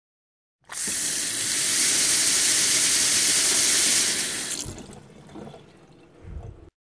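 Water running hard from a tap into a sink, a steady rush that dies away over its last two seconds, with a low knock just before it cuts off.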